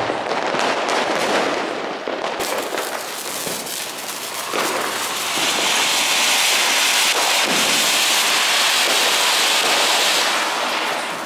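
Fireworks going off with dense crackling. From about five seconds in, a ground fountain firework (flower pot) adds a steady spraying hiss under the crackle, which fades near the end.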